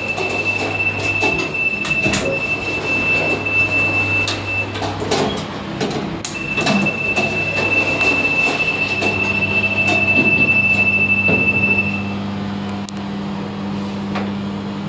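GoldStar express lift car travelling down its shaft: a steady low hum and a high, steady whine over rattles and clicks. The whine breaks off for about a second and a half near the middle and stops about twelve seconds in.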